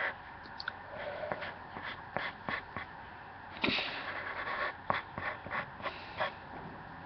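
Drawing tool scratching and tapping on sketch paper in short, irregular strokes, with a longer scratch about three and a half seconds in.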